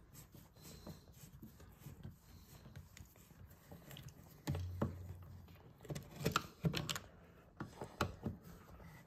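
Screwdriver tip clicking and scraping on the metal mounting screws and strap of a wall dimmer switch as its screws are backed out: faint, irregular small clicks, a few sharper ones near the end. A short low hum about halfway.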